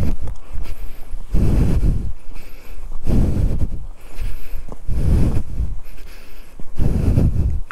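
Heavy panting breaths close to the microphone, about one every two seconds, from a person out of breath after climbing a hill on foot.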